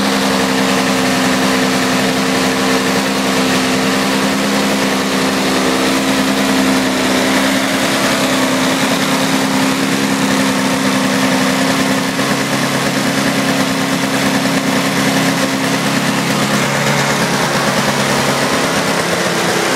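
Single-stage snowblower's small two-stroke engine running steadily on its own, its pitch settling slightly lower about twelve seconds in.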